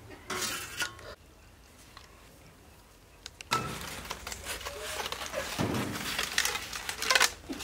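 Metal utensils and dishes clinking and scraping: a short clatter near the start, a pause, then steady clinking and scraping from about halfway through.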